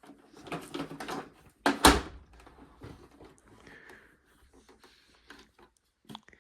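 Handling noises: rattling and clattering, then one sharp knock about two seconds in, followed by a few light clicks.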